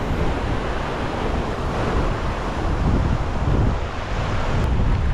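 Ocean surf washing over shoreline rocks, with wind buffeting the microphone as a steady low rumble.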